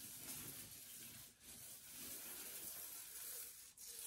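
Paint roller spreading wall paint, a faint sticky hiss with brief breaks about every two and a half seconds between strokes.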